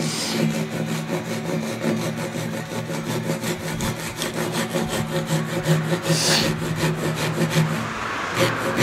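Japanese hand saw cutting down into the end grain of a timber beam with rapid, even strokes, the teeth rasping through the wood, while a kanawa-tsugi scarf joint is being cut by hand.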